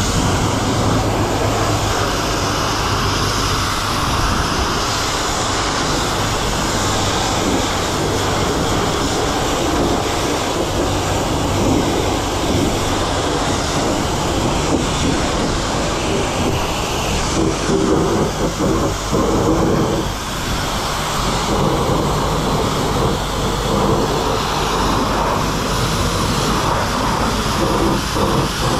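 Self-serve car wash pressure wand spraying water onto a pickup truck's bodywork: a steady loud hiss of spray with a low pump hum underneath.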